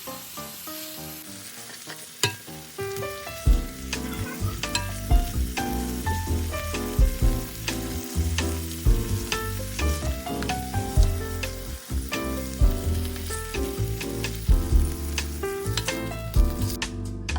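Food sizzling as it fries in a pan, under background music whose bass line and steady beat come in about three and a half seconds in and soon become louder than the sizzle.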